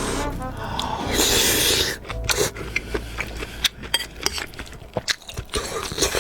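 Close-miked eating of spicy instant noodles: chewing with many short, sharp wet clicks and smacks. A loud rush of noise, under a second long, comes about a second in.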